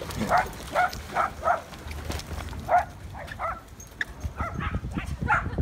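Dog barking in short, high barks, several a second, in three quick runs with short pauses between them.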